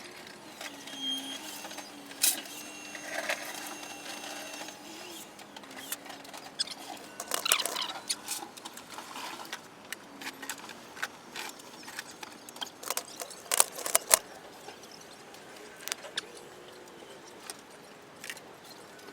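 Scattered knocks, clicks and clatter of work at a bench, with denser runs of louder knocks about seven and thirteen seconds in, over a faint wavering hum.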